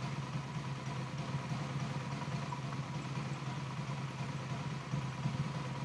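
Four-cylinder motorcycle engine idling steadily while hooked to vacuum gauges for carburetor synchronization; three of its four carburetors are nearly balanced and one is slightly off.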